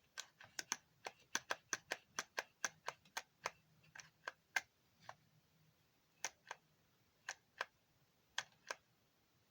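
A run of short, sharp light clicks at an uneven pace, several a second for about the first five seconds, then only a few scattered ones.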